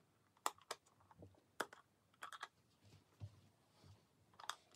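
Sharp plastic clicks and taps from the covers of a Berker light switch and room thermostat being handled and taken off the wall; about half a dozen clicks, some in quick pairs.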